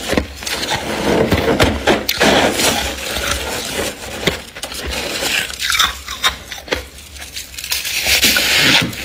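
Freezer frost being crunched and scraped: a dense run of sharp crackles and clicks over rough scraping, busiest about a second in and again near the end.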